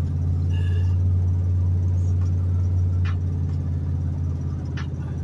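Steady low drone of a car on the move, heard from inside the cabin: engine and tyre noise at cruising speed, with a few faint clicks.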